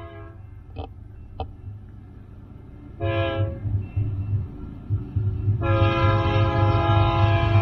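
Union Pacific freight locomotive's air horn sounding as the train approaches: a blast ending just after the start, a short blast about 3 s in, and a long blast beginning near the end, over a steady low rumble.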